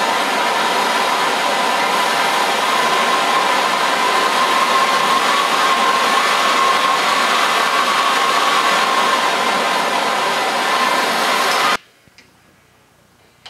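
Handheld propane torch burning with a steady, loud hiss and a thin steady whistling tone running through it, its flame heating a steel chisel so it can be bent. The hiss stops abruptly near the end.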